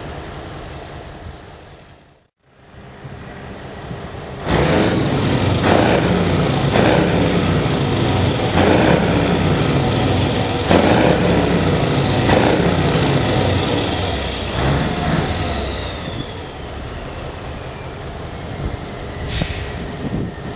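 Scania L141's V8 diesel revved repeatedly while the truck stands still, the revs rising and falling every second or two, with a high whine that slowly falls away as the engine settles. A short, sharp hiss of air about a second before the end.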